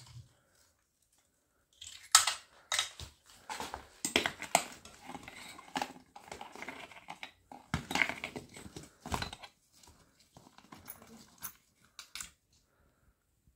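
A cycling pannier bag being handled: fabric rustling, straps and fittings knocking and clattering in irregular bursts. It starts about two seconds in and stops shortly before the end.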